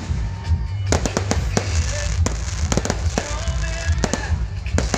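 Fireworks and firecrackers going off in rapid, irregular bangs and cracks, with deep rumbling under them.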